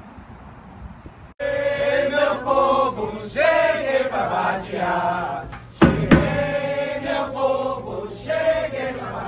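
Wind on the microphone, cut off after about a second and a half by voices singing a chant. Sharp strikes on large metal-shelled drums join about six seconds in.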